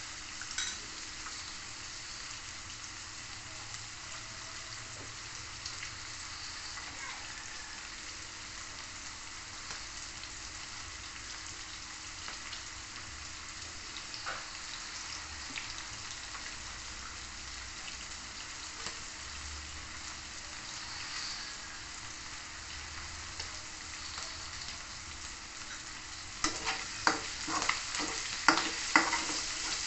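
Meat pieces sizzling in hot oil in a metal wok, a steady hiss. About 26 seconds in, a spatula starts stirring, with quick scraping clacks against the wok.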